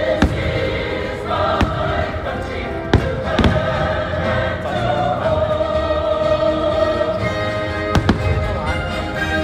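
Music with a choir singing, with fireworks shells bursting over it: sharp bangs scattered through, two close together near the end.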